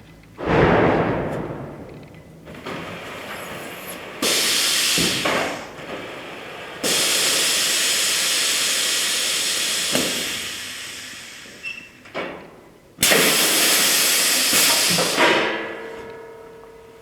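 Automatic expanded-polystyrene packaging machine working: a loud clunk about half a second in, then three long hisses of air that start suddenly and last a few seconds each, with a few knocks between them.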